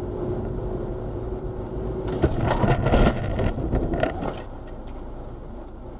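Road noise inside a moving car heard through a dashcam. About two seconds in, a collision sets off a cluster of loud crashing impacts, loudest around three seconds in, with a few more knocks just after four seconds. Then the noise settles to a lower hum.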